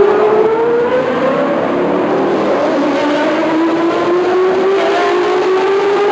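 Race car engines accelerating one after another out of a corner, pitch climbing through the revs; the pitch dips once a little after a second in, then climbs slowly again.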